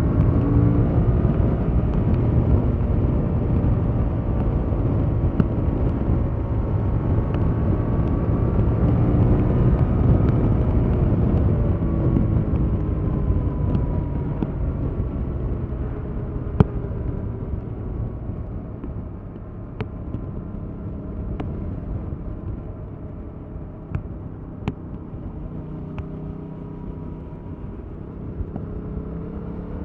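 Stock 2021 Yamaha MT-07's 689 cc parallel-twin engine pulling on the road, its note rising and falling with the throttle. It drops back to a quieter, lower note about two-thirds of the way through, with a few sharp clicks near the end.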